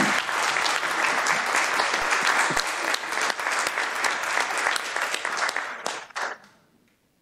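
Applause from a roomful of people, many hands clapping together, which stops about six seconds in.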